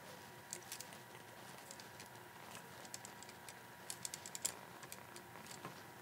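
Faint, irregular small clicks and ticks of a screwdriver turning a brass terminal screw on a wall receptacle, tightening it down on the wire, with a few quick clicks together a little after the middle.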